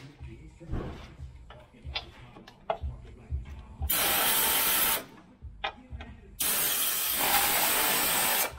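Pneumatic air tool on an air hose run in two bursts, about one second and then about two seconds, each a steady loud hiss of air, working on the slider mounting bolts under the chassis. Small metallic clicks and knocks of the tool being handled come between the bursts.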